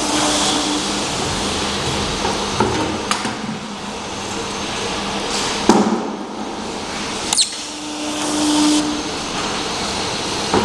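Automatic labeling machine running: a steady mechanical whir from its conveyor and label applicator, broken by a few sharp knocks and, twice, a short low hum.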